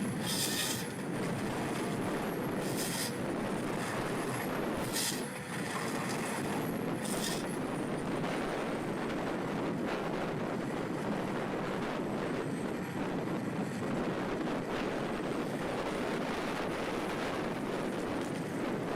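Heavy forestry machine running steadily, with short high-pitched hissing bursts about every two seconds near the start.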